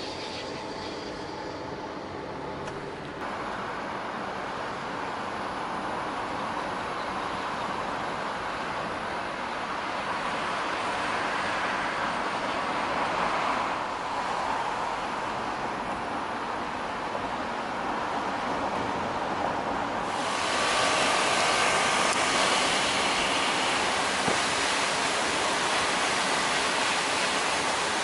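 Steady road and tyre noise of a moving car. The hiss steps up in level about 3 seconds in and gets louder and brighter about 20 seconds in.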